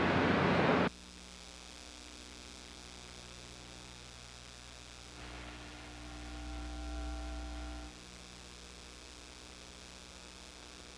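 Loud background noise cuts off abruptly about a second in, leaving a steady electrical mains hum; a low rumble with a few faint steady tones swells for a few seconds midway.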